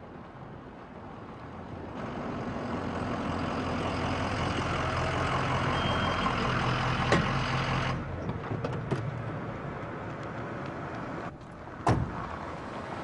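Truck engine running as the truck drives in, getting louder about two seconds in. Near the end comes a sharp bang of a truck door slamming shut, the loudest sound.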